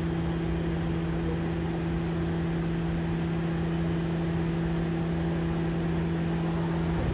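BYD electric garbage truck running with a steady low hum over a background of mechanical noise.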